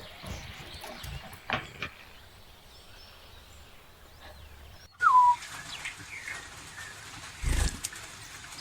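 Zebra finches making scattered short chirping calls. About five seconds in there is a loud, clear falling note, and a thump about two and a half seconds later.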